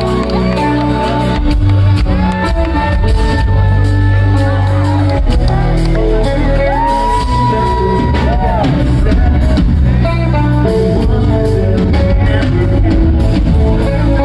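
Live rock band playing loudly: drums, bass guitar and electric guitar, with a male singer singing into a handheld microphone over them.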